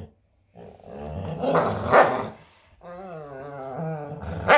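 Dogs growling over a stuffed toy in long, wavering grumbles, with two louder, rougher outbursts, one about two seconds in and one near the end.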